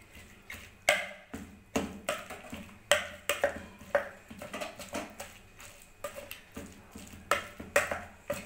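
A metal spoon clacking and scraping against a stainless steel bowl while mashing soft boiled vegetables, with irregular sharp knocks about one or two a second.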